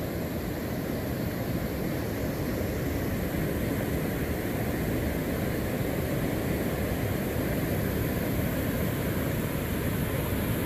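River water rushing over rocks and rapids: a steady, even rushing noise with no breaks.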